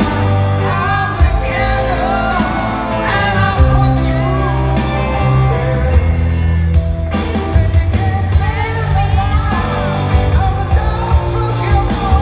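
Live rock band playing, with a male lead vocal singing over guitar, bass and drums, heard through the PA from the seats of a large arena. The vocal pauses briefly about seven seconds in.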